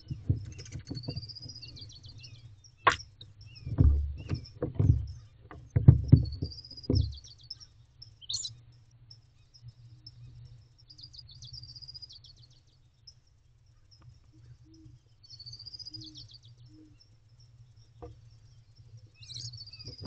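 A small bird singing a short, high, chirpy phrase about every four seconds. Deep thumps and scuffling from barn owlets shifting about on the wooden nest box floor come in the first seven seconds, with one sharp click about three seconds in.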